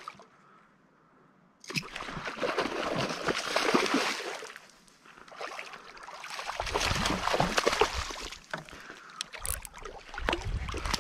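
Water sloshing and splashing around a kayak, starting about two seconds in and coming in spells of a few seconds.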